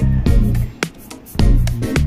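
Background music with a steady beat, plucked guitar and bass.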